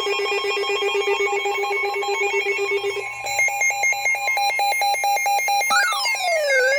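Electronic alert tones before a weather warning. A buzzing, pulsing tone plays for about three seconds, then switches to a fast two-tone warble. Near the end a siren-like tone begins sweeping up and down in pitch.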